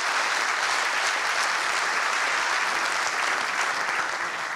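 Audience applauding, steady, beginning to fade near the end.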